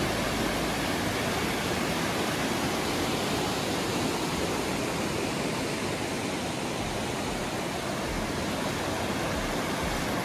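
Fast glacial meltwater river rushing steadily over rocks and rapids.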